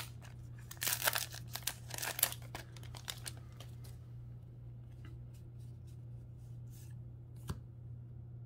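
Crinkly plastic of a trading-card booster pack wrapper rustling in short bursts for the first three seconds or so. After that only a few faint ticks of cards being handled are heard over a steady low hum.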